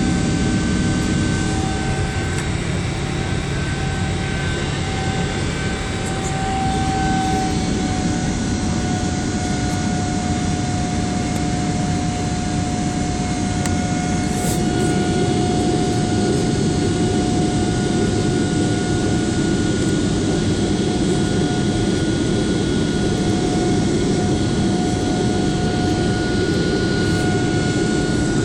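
Boeing 777-300 jet engines heard from inside the passenger cabin: a steady roar with a high whine over it. The low rumble grows heavier about halfway through.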